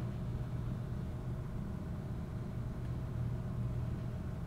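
Steady low background hum of room tone, with no distinct clicks or handling sounds.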